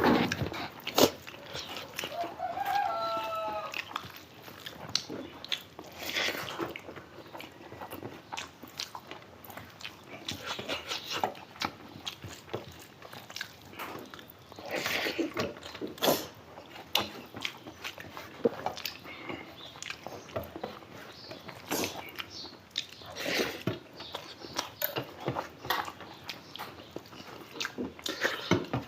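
Close-up eating sounds: mouths chewing and smacking on rice and curry, with scattered short clicks and taps throughout. A brief pitched call sounds about two to three seconds in.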